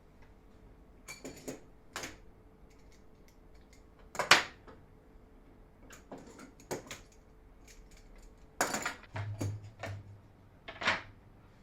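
Intermittent clicks and knocks of tools, hardware and wooden parts being handled on a workbench, with one louder knock about four seconds in and a quick cluster of clatter near the end.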